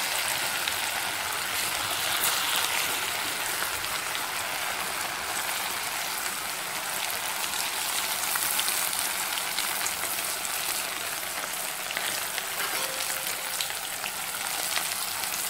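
Boiled taro root (colocasia) pieces deep-frying in hot oil in a kadai: a steady sizzle.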